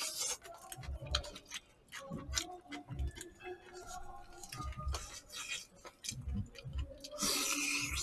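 Eating sounds: a metal spoon and chopsticks clicking and scraping against disposable takeaway containers in quick, irregular ticks, with chewing and dull low knocks. About seven seconds in, a breathy hiss lasts most of a second.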